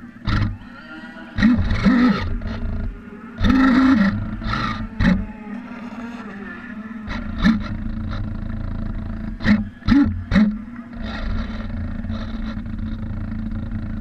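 A radio-controlled model lobster boat's motor running with a steady hum, broken by several short, louder surges and splashes.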